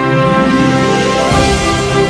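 Music with sustained, held notes and a low hit a little over a second in.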